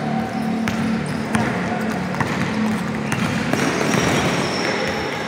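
Basketball bouncing on an indoor court floor, sharp thuds every second or so, over the continuous hubbub of a game in a gym.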